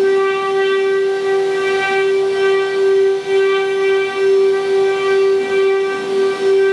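Spindle motors of a 12-head woodworking CNC router running at speed: a steady, high whine held at one pitch, wavering in loudness.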